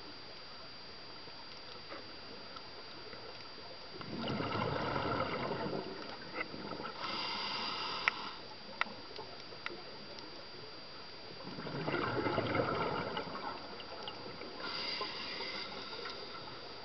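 Scuba regulator breathing underwater, heard through the camera's housing: two breath cycles, each a rushing, bubbling burst followed a second or so later by a higher hiss. A few sharp clicks come in the middle, over a faint steady high tone.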